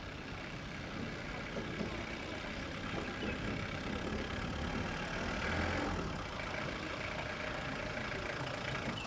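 A van's engine running at low speed as it approaches slowly, getting somewhat louder toward the middle.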